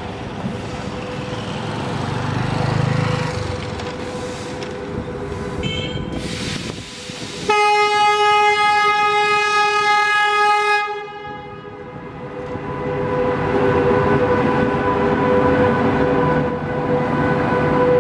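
SS8 electric locomotive and its passenger coaches running past with a rumble. About seven and a half seconds in the locomotive sounds its horn in one long blast of about three and a half seconds, the loudest sound, which cuts off suddenly. The coaches then run by with a steady whine.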